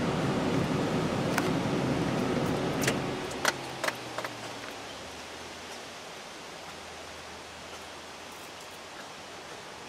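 A vehicle's engine running and fading away over the first few seconds as it drives off, its pitch sinking slightly, with a few sharp clicks as it fades; then steady quiet outdoor ambience.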